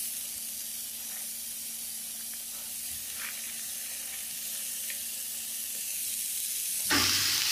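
Onion-garlic-ginger masala paste frying in oil in a pan, sizzling steadily; it has cooked down until the oil separates from the paste. The sizzle grows louder near the end.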